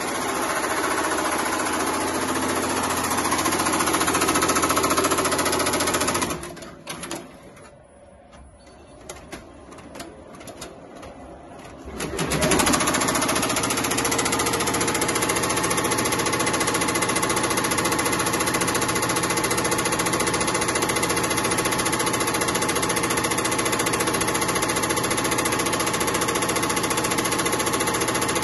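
Tajima commercial embroidery machines running, the needle heads stitching steadily. About a quarter of the way in the sound falls away for several seconds to a few faint clicks, then the machine sound comes back suddenly and runs steadily again.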